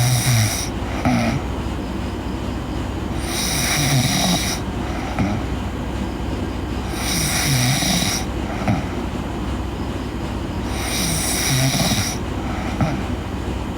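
A sleeping girl snoring in a slow, regular rhythm: a hissing breath about every three and a half to four seconds, four in all, with short low snorting glides between them.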